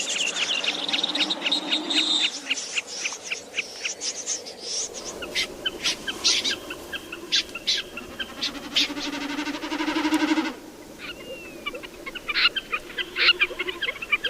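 Recorded calls of migratory birds played as a night net-trapping lure: fast runs of sharp, repeated notes and chirps. The background changes abruptly about 5 s and 10.5 s in, where separate recordings are spliced together.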